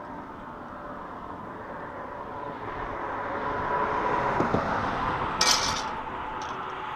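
A road vehicle passing, its steady noise swelling to a peak about four to five seconds in and then easing off. A brief sharp clatter is heard about five and a half seconds in.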